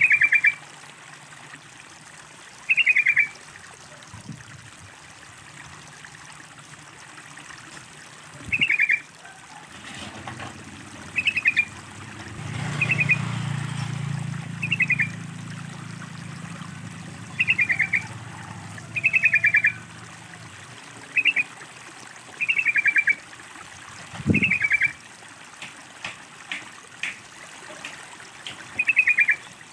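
Yellow-vented bulbul calling over a steady trickle of water. Each call is a short, quick falling run of chattering notes, repeated about a dozen times at uneven intervals of one to three seconds. A low hum runs through the middle, and a single thump comes near the end.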